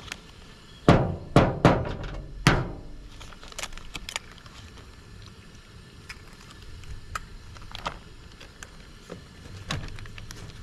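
An egg knocked hard against a tabletop four times within about two seconds to crack it, followed by faint clicks and rustles of a plastic zip-top bag being handled and pressed flat.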